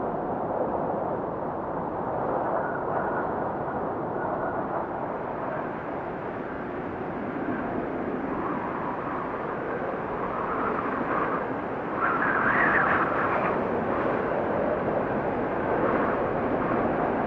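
Wind blowing in a steady rush that swells and eases, with a stronger gust about twelve seconds in.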